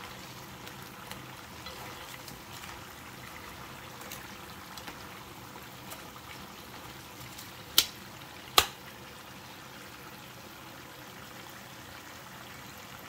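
Hot oil sizzling and bubbling steadily around spring rolls deep-frying in a frying pan. Two sharp clicks, under a second apart, a little past halfway through.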